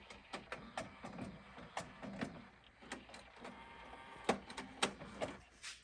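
JVC PC-XC11 boombox's three-disc CD changer moving to disc 3: a small motor running with a series of sharp clicks about a second apart as the mechanism selects and loads the disc.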